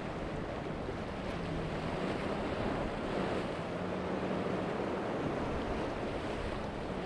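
Steady wind and water noise, with wind buffeting the microphone, and a faint steady low hum underneath.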